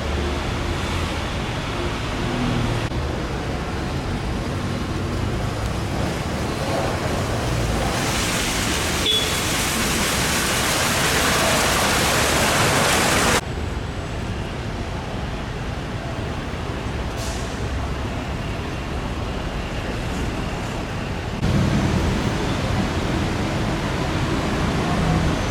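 Road traffic noise: a steady rush of vehicles and engine hum. It changes abruptly a few times, and its loudest stretch is a broad rushing noise in the middle that builds slowly and then cuts off suddenly.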